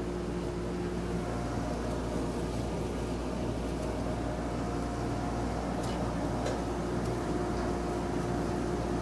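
Forge blower running steadily, a continuous hum with a faint steady tone, driving air into the coke fire to bring the pieces up to welding heat.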